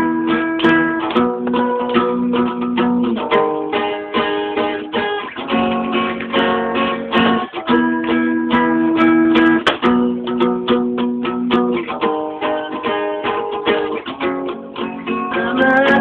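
Acoustic guitar strumming chords in an instrumental break of a pop song, the chord changing every second or two.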